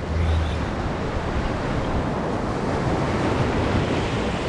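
Ocean surf washing steadily, with wind noise on the microphone and a brief low rumble in the first second.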